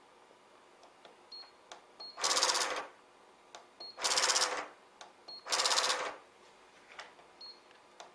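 Small Sartorius balance data printer printing a line of weight data three times, each a buzzy mechanical run of about two-thirds of a second. Between the print runs come short high beeps and light clicks as the balance keypad is pressed.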